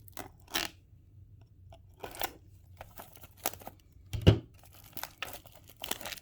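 Cardboard and plastic packaging of trading-card boxes being handled and opened: scattered short crinkling and tearing sounds, with one louder thud about four seconds in.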